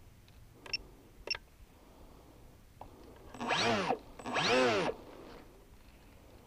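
Electric brushless motor and pusher propeller of a Mini Talon model plane blipped twice, each time spinning up and back down within about half a second: a pre-launch throttle check. Two short faint ticks come about a second earlier.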